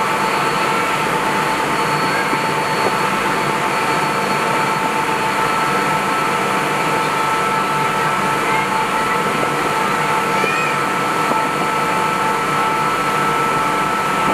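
Steady running noise of a high-speed ferry under way: a constant rush with a high, unchanging whine on top and a lower engine hum, with no change in speed or pitch.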